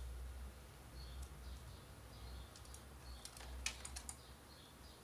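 Faint, light clicks and ticks of a screwdriver and small screws being handled, most of them bunched together in the middle, over a low steady hum.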